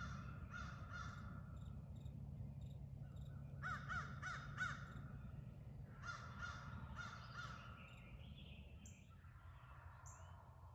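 Crows cawing: three bouts of four or five harsh caws each, a couple of seconds apart, over a low steady rumble. A few short, high bird chirps come near the end.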